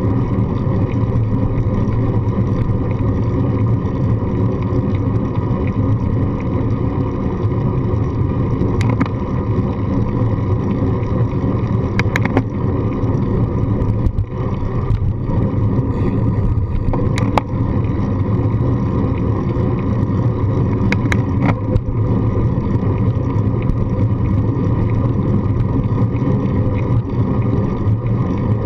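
Steady low rumble of wind and road vibration from riding a bicycle on asphalt, picked up by a handlebar-mounted GoPro, with a few sharp clicks or knocks from bumps in the path scattered through the middle.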